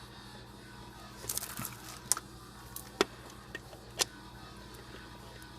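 Tool clicking on metal as screws on a distributor cap are tightened down by hand: a short cluster of clicks, then single sharp clicks about once a second.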